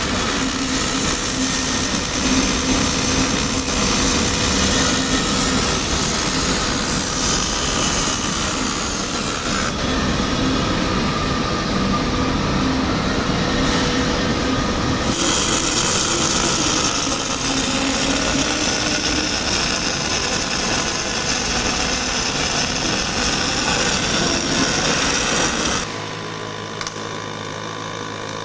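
Semi-automatic MIG welder arc crackling and sizzling steadily during a weld. The crackle stops near the end, leaving a quieter steady hum.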